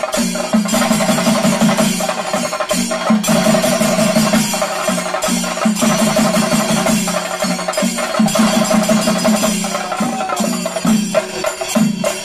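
Chenda drum ensemble playing fast, dense stick strokes in a continuous pulsing rhythm, with a held low tone beneath that breaks off about once a second.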